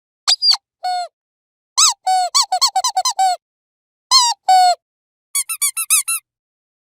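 Dog's squeaky toy squeezed in quick bursts: short high squeaks, each bending in pitch, come singly and in fast runs of several with silences between them.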